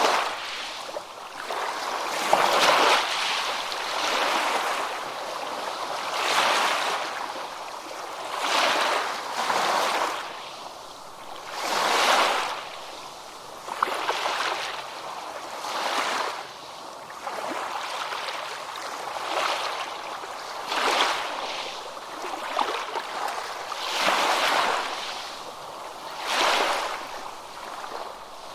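Small ocean waves breaking and washing in, one after another, each surge of water noise swelling and fading every two seconds or so.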